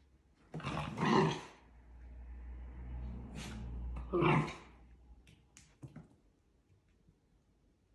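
Miniature dachshunds at play: a burst of barking about half a second in, a low growl through the middle, and another short bark about four seconds in.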